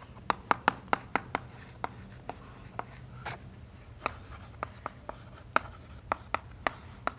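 Chalk writing on a blackboard: an irregular run of sharp taps and short scratches as letters are written, densest in the first second and a half.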